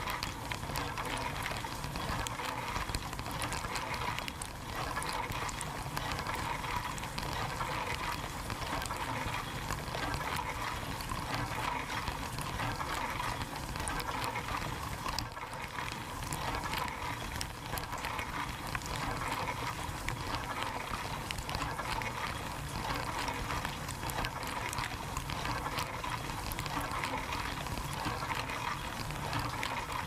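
Dishwasher running its wash, heard from inside the tub: water sprayed against the racks and walls in a steady rush, with many small ticks of droplets striking the camera, over a low steady rumble.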